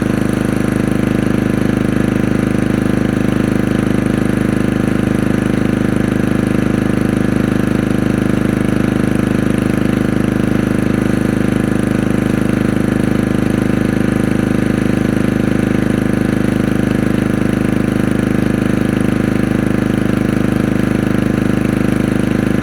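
Portable generator engine running at a steady, unchanging speed after months of sitting unused.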